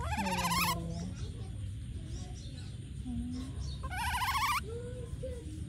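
Baby macaque calling twice with short, high, wavering squeals, the first at the very start and the second about four seconds in.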